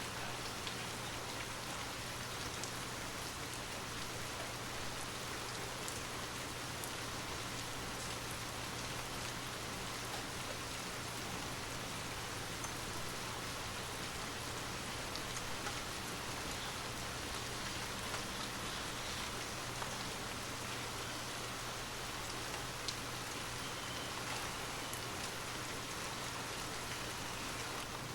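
Steady rain falling, with scattered individual drops tapping through it and a faint low hum underneath.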